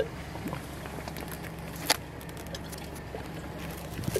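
Boat engine idling with a steady low hum, under scattered clicks and knocks from a mesh chum bag and its tie being handled. The sharpest click comes about two seconds in.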